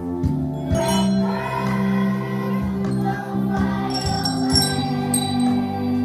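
Children's choir singing to instrumental accompaniment, with small hand bells, jingle bells and a triangle ringing along. The bright bell and triangle ringing is thickest about four to five seconds in.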